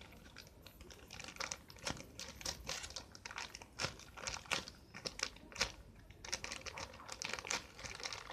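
Plastic packaging crinkling in short, irregular crackles as a squishy toy, a jumbo panda bun, is handled.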